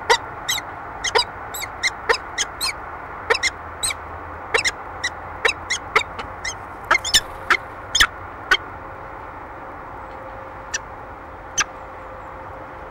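Peregrine falcon calling during courtship at the nest ledge: a run of short, sharp chipping calls, roughly two a second, that thins out about nine seconds in to two last calls near the end, over a low steady hum.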